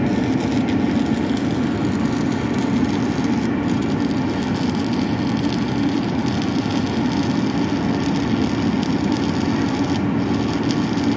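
Steady, unbroken machinery noise, even in level, with a faint fine crackle on top.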